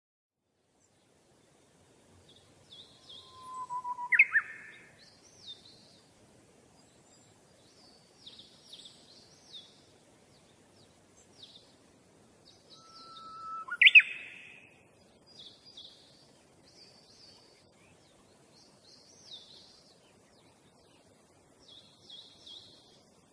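Small birds chirping and twittering in quick high notes, starting about two seconds in, with two louder calls about four and fourteen seconds in.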